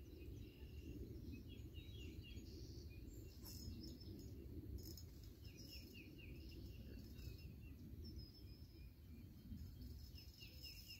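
Faint outdoor ambience: small birds giving short series of quick chirps several times, over a steady low rumble.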